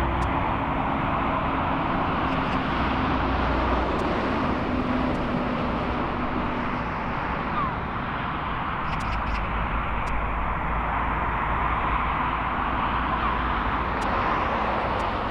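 Steady roar of jet airliner engines at the airport, with a low engine tone that sinks slightly and fades over the first several seconds.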